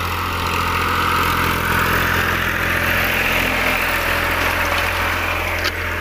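Powertrac 434 tractor's diesel engine running steadily as it pulls a 12-disc harrow, with a rushing hiss of the discs cutting through soil and plants that swells and fades midway.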